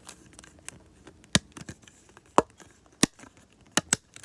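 About five sharp, irregular clicks from homemade DIY pop-it fidget toys being handled; the loudest comes about halfway through.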